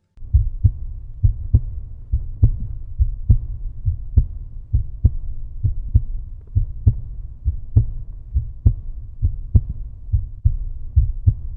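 Outro music: a steady, loud low beat, a little more than two pulses a second, with little above the bass.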